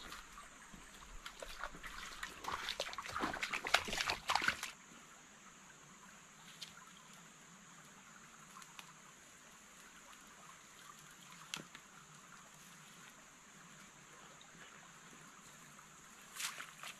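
Footsteps crunching and scuffing over stones and a log at a shallow stream for about three seconds, then the stream trickling faintly, with a single sharp knock midway and a brief rustle near the end.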